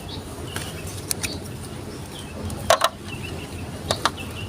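Glass marbles rolling down a plastic Lego Duplo marble-run track: a steady low rumble with sharp clicks as they strike the blocks, the loudest a quick double click about halfway through.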